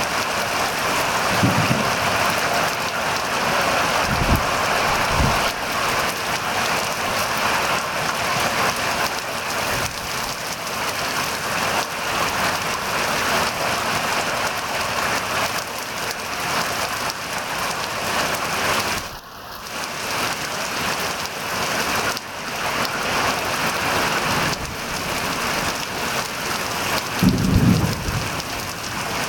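Heavy summer rain pelting a pond's surface and the reeds, a dense steady hiss, with a few brief low thumps near the start, around four to five seconds in, and near the end.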